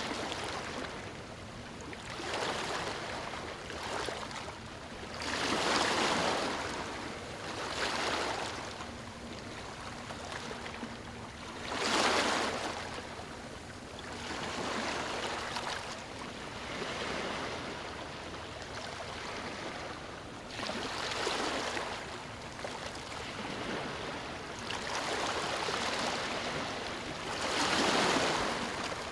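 Waves breaking and washing up a beach: a surge of surf every few seconds over a steady hiss.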